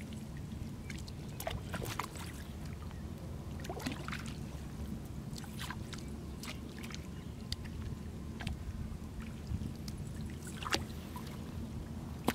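Muddy paddy water sloshing and dripping as hands and cast nets are worked through it, with scattered small splashes, one a little louder near the end, over a steady low rumble.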